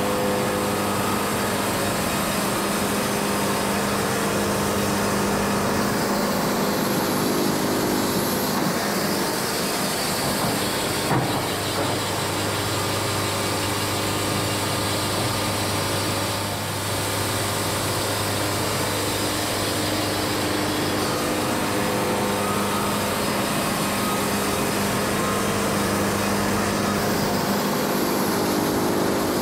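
Wood-Mizer LT70 band sawmill running steadily while it saws a Kentucky coffee tree log, its engine and band blade making a continuous mechanical drone. About eleven seconds in, after a single click, the tone shifts to a lower steady hum for about ten seconds, then the earlier sound returns.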